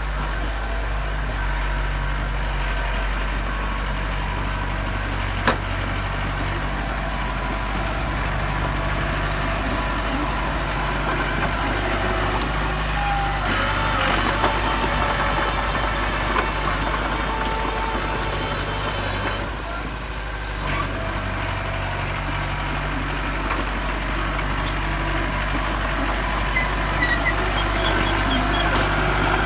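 Diesel engine of heavy earthmoving machinery running steadily, its low note shifting now and then, with one sharp click about five and a half seconds in.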